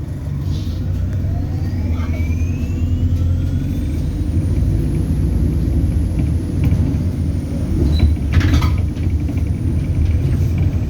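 ADL Enviro400 Hybrid bus accelerating, heard on board. A low drivetrain rumble runs under whines that rise in pitch, and a high turbo whistle climbs, holds and falls away near the end. A short hiss comes about eight seconds in.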